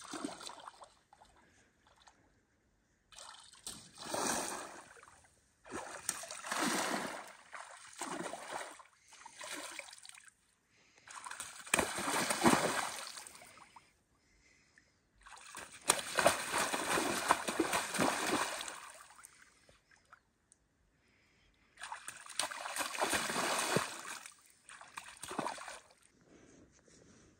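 Shallow lake water splashing and sloshing around a person's legs as he wades, in about six spells of a few seconds each with short quiet gaps between them.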